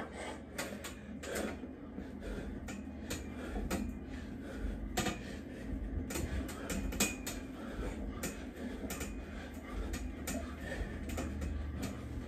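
Steel dip bars clicking and knocking irregularly as a man does repeated dips on them, the frame and fittings rattling under his weight.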